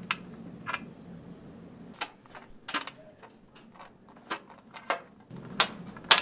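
A string of sharp metallic clicks and clinks, about eight, as metal corner brackets, screws and an Allen key knock against the projection-screen frame rails while they are fitted together; the loudest come near the end.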